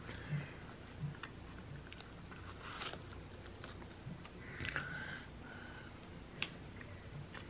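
Faint rustling of sticker paper and light taps and clicks as stickers are handled and pressed onto a planner page, with a short rustle about three seconds in.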